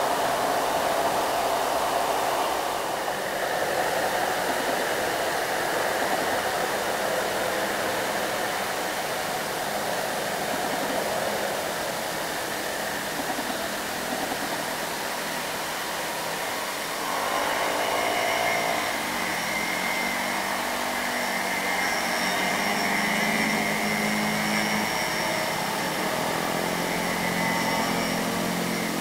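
Heavily loaded light trucks' diesel engines running past on a bend, over steady road and tyre noise. About two-thirds of the way through, one truck's engine note comes in clearly and holds steady.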